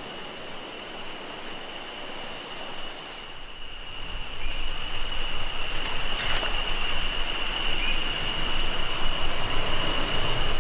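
Steady high-pitched insect drone in tropical forest, one even tone that holds throughout. From about four seconds in a low rumbling noise joins it and the whole sound grows louder, with a single short knock a little later.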